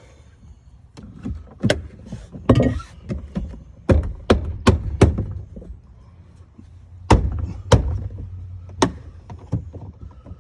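Irregular sharp knocks, clicks and clunks of a replacement power liftgate arm and its fittings being worked into place against the liftgate, with a brief scrape about two and a half seconds in; the loudest knocks come past the middle.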